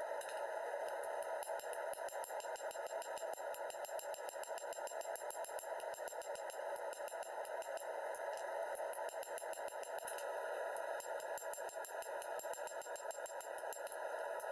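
Hand hammer striking a red-hot steel sword blade on an anvil in a fast, even run of blows while the bevels are forged toward the tip.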